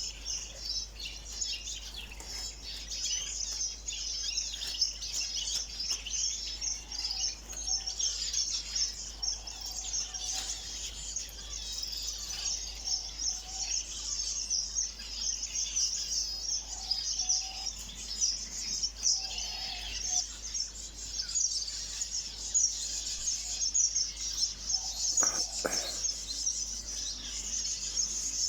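A flock of small aviary birds chirping and twittering continuously in many overlapping high, short notes, with a few lower calls among them.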